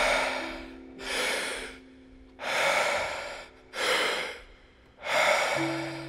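Deep, rhythmic Wim Hof power breathing: rushing breaths in and out, about one full breath every three seconds, over soft background music of long held tones.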